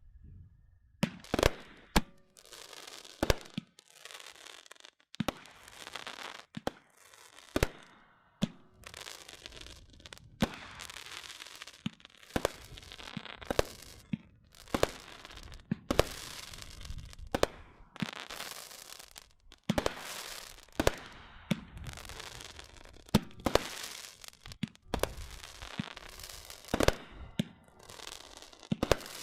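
World Class 'The Whole 9 Yards' firework going off: a string of sharp bangs, one every second or two, with crackling and hissing between them.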